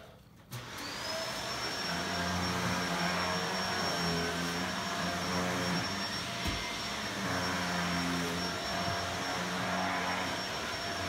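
An electric motor appliance with an airflow, like a vacuum cleaner or fan, switches on about half a second in. Its high whine rises quickly to a steady pitch over a constant rush of air and a low hum.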